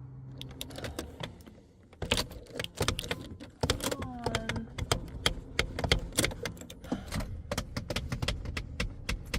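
Irregular clicking and rattling from the ignition key and pedals of a BMW E46 that will not start; no engine catches. A brief voice-like sound falls in pitch about four seconds in.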